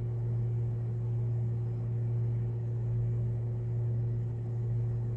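A steady low hum with a fainter, higher steady tone above it, unchanging throughout.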